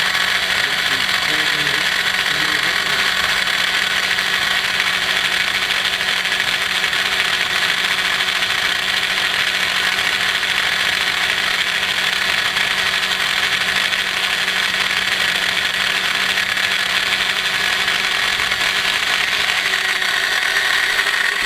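MF70 micro milling machine's spindle motor running at a steady speed while cutting into wood, a constant low hum under a high hiss.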